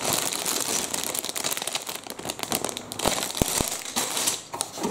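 Sealed plastic LEGO parts bags crinkling as they are handled, with a few sharp clicks from the bricks inside.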